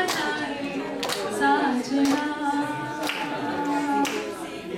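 A woman singing unaccompanied into a handheld microphone, holding long notes in a slow melody, with sharp hand claps keeping time about once a second.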